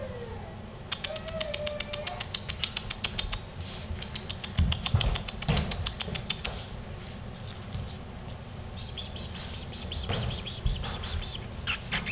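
Six-week-old puppies giving short high whines that rise and fall in the first couple of seconds. Fast runs of clicking and a few soft thumps follow.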